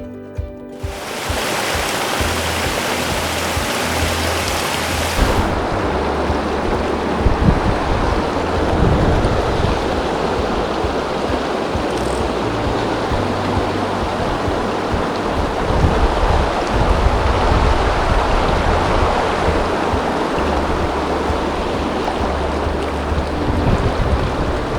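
Steady rushing of a mountain trout creek, starting about a second in, with low background music notes underneath.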